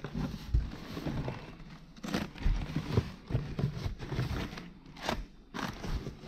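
Plastic bubble-wrap packaging crinkling and rustling against a cardboard box as hands pull at the wrapped chrome grille, in irregular crackles and scuffs.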